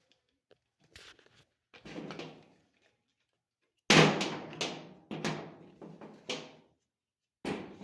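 Hard plastic knocks and clicks as washing-machine agitator parts are pressed and snapped into place. Faint clicks and a scrape come first, then about seven sharp knocks in quick succession from about halfway through, and one more near the end.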